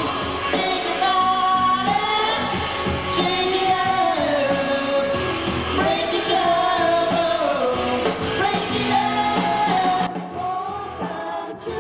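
Live band playing with a lead singer carrying a gliding melody. About ten seconds in the drums and bass drop out and the singing continues over lighter backing.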